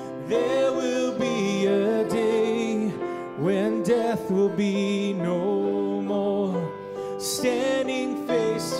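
A slow worship song: a woman sings the lead into a microphone over electric keyboard accompaniment, holding long notes.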